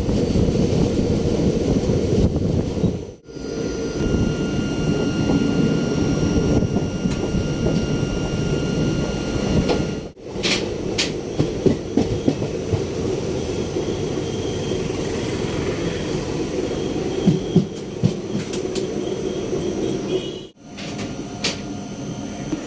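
Parasuram Express passenger train running along the track, a steady rumble with scattered wheel clicks, broken by three brief drops where clips are cut together.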